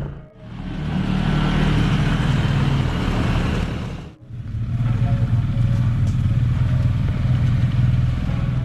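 Quad bike (ATV) engine running steadily while riding, broken by two short dips, about a third of a second in and about four seconds in.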